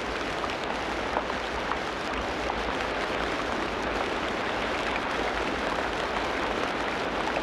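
Steady rain falling in a tropical rainforest: an even hiss of rain with many small scattered drop ticks.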